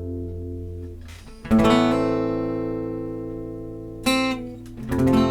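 Acoustic guitar strumming chords and letting them ring out. A chord struck about a second and a half in rings and slowly fades, then two shorter strums come near the end.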